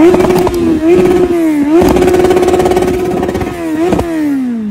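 Motorcycle engine revved hard again and again, its pitch held flat at the top of the revs with brief dips, then falling away as the throttle is let off near the end.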